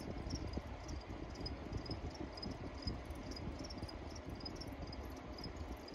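European house crickets chirping, a steady run of short high chirps about twice a second, over a low background rumble.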